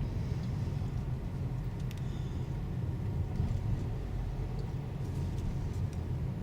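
Steady low road and engine rumble inside a moving Toyota Corolla's cabin.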